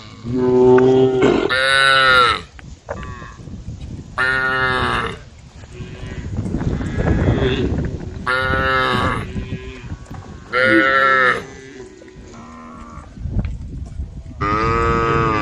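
A herd of cows mooing, several animals calling in turn at different pitches, about seven calls of roughly a second each. A stretch of rushing noise comes about halfway through.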